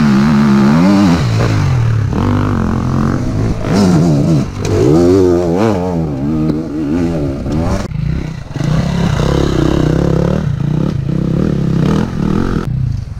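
Enduro motorcycle engines on a muddy trail. The revs rise and fall quickly again and again as a rider works the throttle over rough ground and rides past close by, and another bike's engine is heard approaching near the end.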